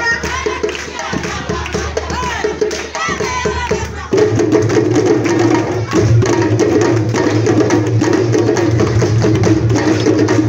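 A group of djembe drums playing a fast traditional rhythm together. About four seconds in, the drumming gets suddenly louder and fuller and stays that way.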